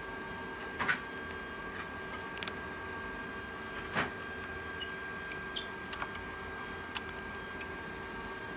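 Cables and connectors being handled, giving a few sharp clicks and light knocks. The loudest click comes about four seconds in, as a plug is pushed into the back of a rack server. Under it all runs a steady electrical hum with a thin whine.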